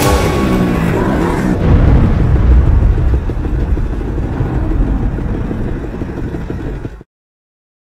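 Music ends about a second and a half in, giving way to a loud, low rumbling noise. The rumble swells, then fades over several seconds and cuts off abruptly near the end.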